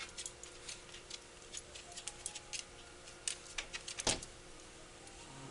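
Soft, irregular clicks scattered through the quiet, with one louder click about four seconds in. Right at the end a sleeping dachshund starts a low, contented whimpering sound.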